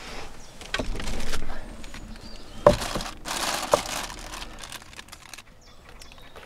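Clear plastic bag crinkling and rustling as raw meat is pulled out of it, with two sharp knocks about a second apart on a wooden table.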